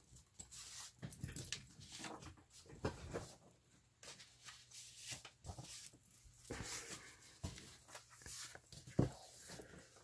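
Quiet handling of paper and card: irregular rustles, scrapes and taps as folded cardstock is pressed flat and slid away, and a plastic cutting mat is lifted off the table.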